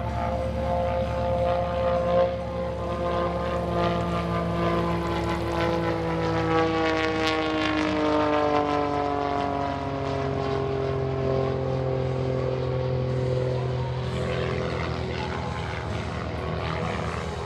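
Pitts S-1S aerobatic biplane's engine and propeller droning steadily as it flies past close overhead. About six seconds in, the pitch slides down over several seconds, the Doppler drop of the plane passing, then holds lower as it moves away.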